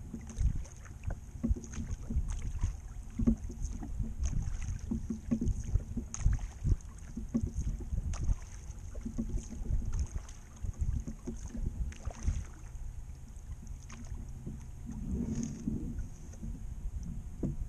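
Oars of a 12-foot wooden rowing skiff working in their oarlocks: repeated knocks and splashes as he rows, with wind rumbling on the microphone.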